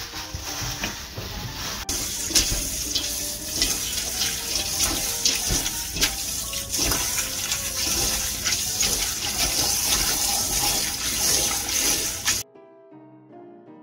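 Water splashing and sloshing as soybean sprouts are rubbed and swished by hand in a bowl of water. It starts about two seconds in and cuts off suddenly near the end.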